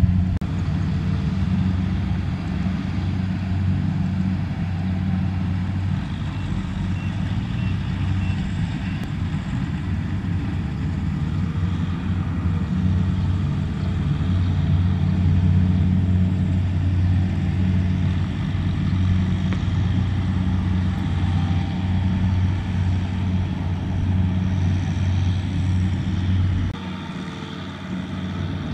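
Kubota M6040SU tractor's diesel engine running steadily under load while it hauls a trailer of rice sacks through mud. Its note drops a little near the end, as if the throttle is eased.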